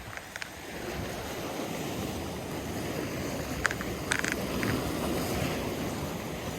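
Steady wind and water noise outdoors by the water, with a few short sharp clicks a little past the middle.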